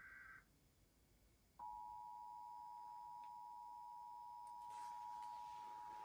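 Emergency Alert System tones from a television speaker: a brief burst of data tones ends about half a second in. About a second later the EAS attention signal starts, a steady two-tone alert that holds on, announcing a National Weather Service tornado warning.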